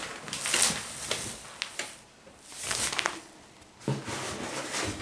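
Packaged grocery bags rustling and crinkling as they are handled, in short noisy bursts with a few light clicks about a second and a half in.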